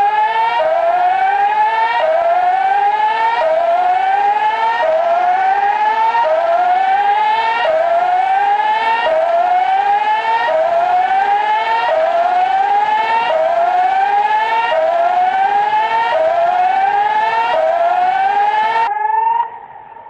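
Tsunami evacuation warning siren sounding a repeating rising whoop, about one sweep every 1.4 seconds, signalling people to evacuate to a safe zone. It cuts off suddenly near the end.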